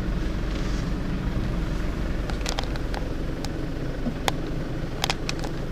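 Car engine and road noise heard from inside the cabin while driving, a steady low rumble. A few sharp clicks come in the second half.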